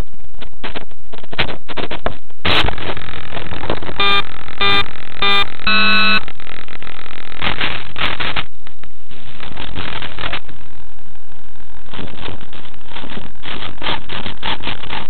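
Loud crackling and knocking picked up by the small onboard camera's microphone as the model plane is handled, with four short steady beeps about four to six seconds in. The propeller is not running.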